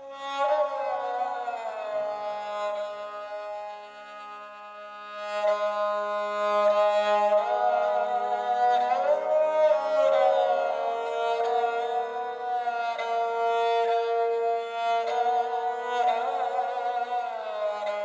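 Sonuscore Ethnic String Phrases sample library playing a bowed-string phrase: a solo melody with sliding, bending notes over a steady low drone. It gets louder about five seconds in.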